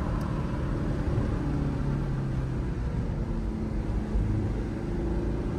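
Car engine and road noise heard from inside the cabin while driving, the engine note changing pitch several times.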